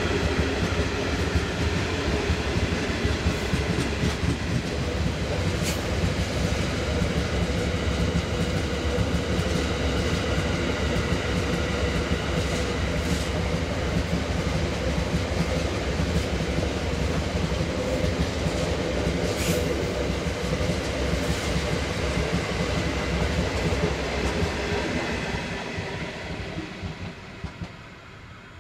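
Iron ore train's wagons rolling past on the rails: a steady wheel rumble with a few sharp clanks and knocks from the wagons. It fades away over the last few seconds as the train moves off.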